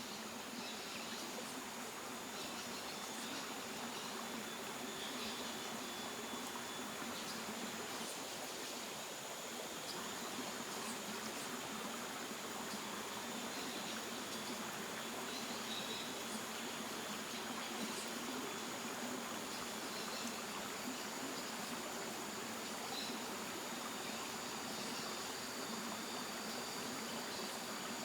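Water running steadily over a waterfall, with insects shrilling a steady high-pitched tone over it.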